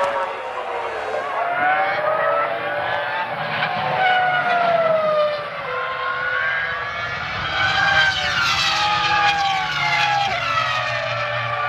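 Formula One cars' 3.0-litre V10 engines at racing speed, several heard at once, their pitch rising and falling over and over.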